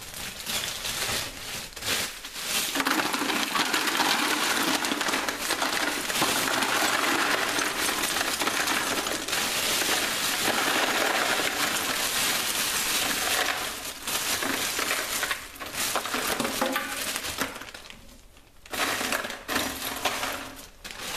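Ice cubes poured from a plastic bag into a plastic bucket, clattering and clinking against one another in a long continuous pour. It breaks off near the end, then picks up again briefly.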